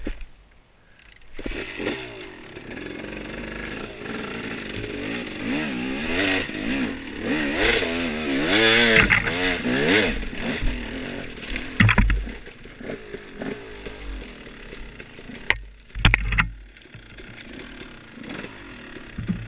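Off-road dirt bike engine revving up and down over and over as the throttle is worked, loudest around the middle, then settling to a lower run. Two sharp knocks come in the second half.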